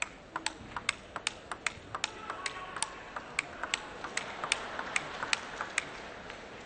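Table tennis ball knocked back and forth in a steady rally, bat hits and table bounces making sharp clicks about three times a second; the clicks stop shortly before the end.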